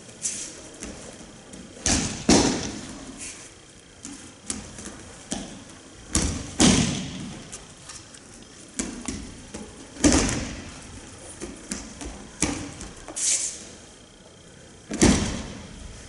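Aikido breakfalls on tatami mats: the thrown partner's body slapping and thudding onto the mat four times, roughly every four seconds, each heavy thud with a short echo. Lighter knocks and swishes fall between them.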